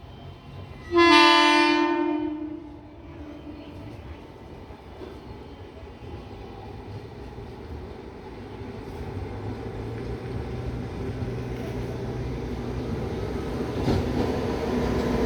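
Indian Railways MEMU electric train sounding its horn in one loud blast about a second in, lasting roughly a second and a half. It is followed by the running rumble of the train, growing steadily louder as it approaches.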